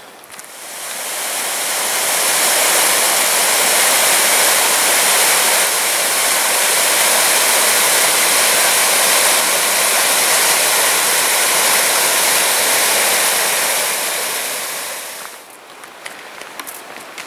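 A small waterfall splashing and rushing down mossy rock, a steady rush of water that swells up over the first couple of seconds and fades away near the end.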